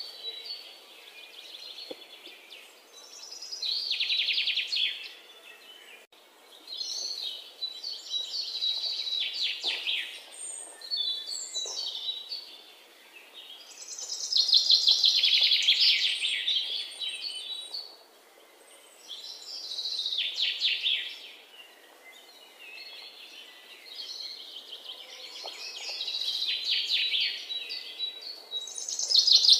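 Birds singing in repeated bursts of rapid high trills, one every few seconds.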